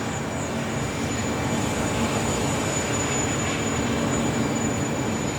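Steady background rumble with no distinct events.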